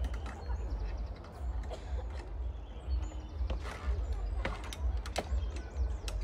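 Scattered metallic clicks and clacks of the safety hooks of a tree-top ropes course being handled and clipped on the steel lifeline cable. Short bird chirps and a constant low rumble can be heard under them.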